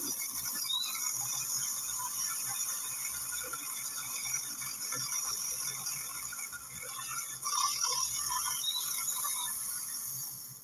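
Small battery-powered chainsaw running steadily with a high-pitched motor whine and chain hiss, stopping suddenly at the end.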